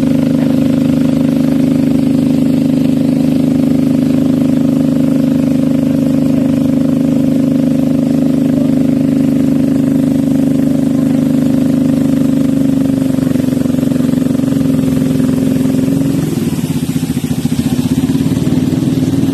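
Small boat's engine running steadily close by; about two-thirds of the way through its note shifts, and near the end it turns uneven and pulsing as the engine slows.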